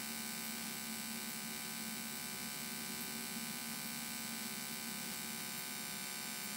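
The steady in-flight drone of a Cessna 172N's engine and propeller, heard as an even hum with several fixed tones.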